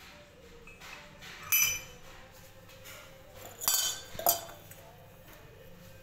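A metal spoon clinking against a ceramic cup three times, with a brief ringing after each clink, as parrots peck food off the spoon.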